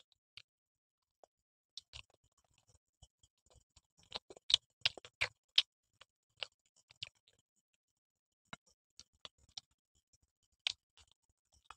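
Close-miked eating sounds: short, sharp crunchy bites and chewing clicks of people eating pizza and biryani with their hands, scattered, with a quick run of louder ones about four to six seconds in.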